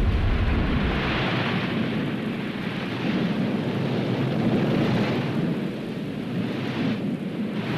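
Noisy roar of an erupting volcano that swells and eases, with a deep low rumble that drops away about a second in.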